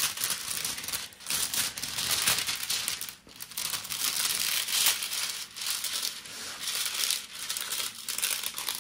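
Crinkling and rubbing of a diamond painting canvas and its plastic cover film as it is handled and smoothed flat, in uneven strokes.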